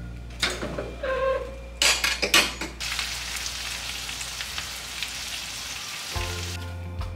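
Freshly oven-roasted chicken pieces sizzling in their fat on the baking tray, a steady spitting hiss. It follows a few short tones and sharp clicks in the first couple of seconds, and background music comes in near the end.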